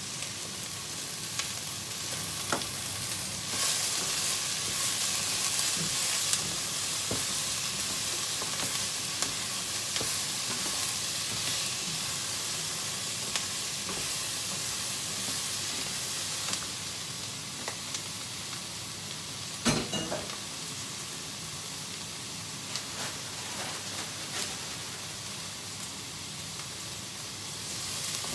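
Mixed vegetables sizzling in hot oil in a deep pan as they are stir-fried with a spatula, with a steady hiss and scattered clicks of the utensil against the pan. The sizzle is louder from a few seconds in until about halfway, and there is one loud knock on the pan about two-thirds of the way through.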